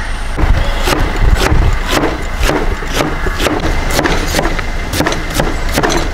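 A cleaver chopping pineapple on a wooden chopping board, dicing it into small pieces with sharp knocks at about two to three strikes a second. A low rumble runs underneath.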